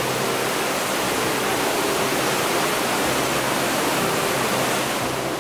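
Steady rush of water from a waterfall, an even roar with no breaks.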